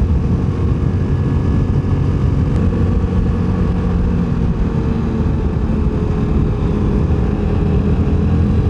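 Access Shade 850 Xtreme quad's engine running steadily at cruising speed, with wind noise on the microphone.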